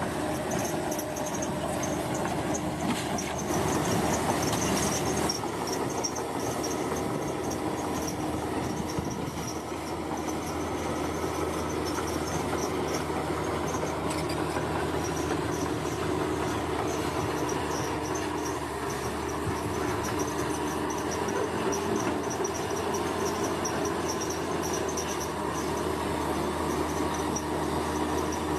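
Komatsu bulldozer's diesel engine running steadily under work, a continuous heavy mechanical din. A high-pitched pulsing chirr of insects sits over it throughout.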